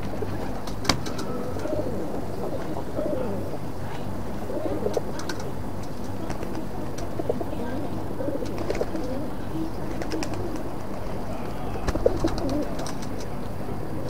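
Pigeons cooing, low warbling coos repeating and overlapping, with a few sharp clicks, the loudest about a second in and near the end.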